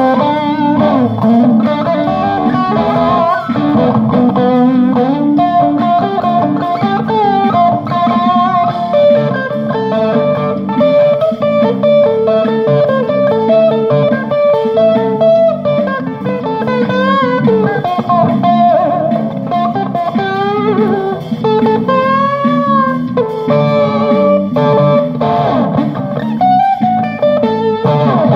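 Guitar playing an improvised jam: single-note melodic lines over lower sustained notes, with a few bent notes about two-thirds of the way through.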